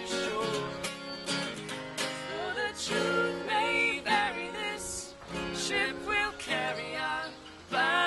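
Acoustic guitar strummed under a woman and a man singing.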